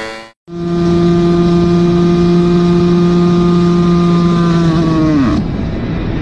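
Yamaha RXZ 135's single-cylinder two-stroke engine held at high revs with a steady note. About five seconds in, the revs drop away fast and the note dies, shown as the engine seizing.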